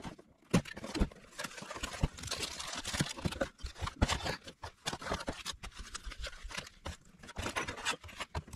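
Unpacking a boxed electronic keypad deadbolt: packaging rustling and scraping, with repeated small clicks and knocks as the parts are handled.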